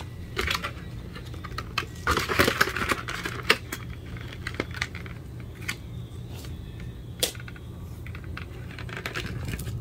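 Hands handling the packaging and a small NVMe SSD: scattered light plastic clicks, taps and rustles, thickest about two to three seconds in, over a steady low hum.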